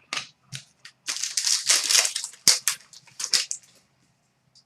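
Trading cards being handled: a run of quick scraping and rustling swishes as cards slide against each other, with a few sharp clicks near the start.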